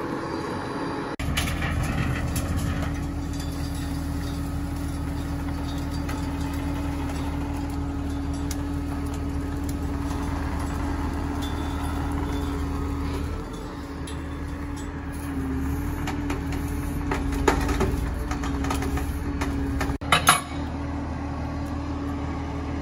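Heavy wrecker's diesel engine running steadily, with a held mechanical hum throughout. Several sharp metallic clanks come near the end, the loudest a quick double clank.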